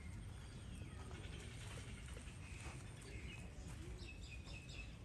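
Faint outdoor ambience: steady low background noise with scattered bird calls, ending in a quick run of short high chirps.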